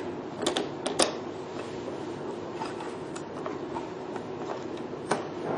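A few sharp clicks and knocks of hard parts being handled and fitted, two about half a second and one second in and one near the end, over a steady low hum.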